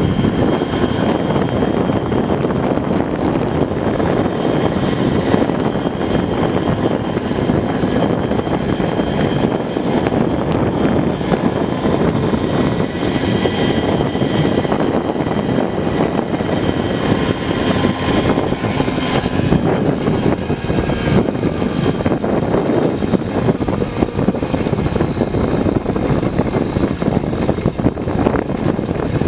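1980 Puch Maxi moped's 49cc single-cylinder two-stroke engine running steadily at cruising speed, its pitch drifting slightly, under a heavy rush of wind on the microphone.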